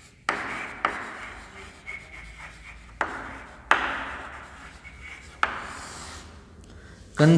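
Chalk scratching on a blackboard as a word is written, in several separate scratchy strokes that each start sharply and then fade.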